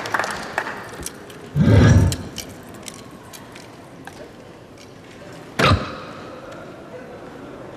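A dull thump about two seconds in, then faint scattered clicks. About five and a half seconds in comes one sharp smack of a soft-tip dart striking the electronic dartboard, with a short ring after it.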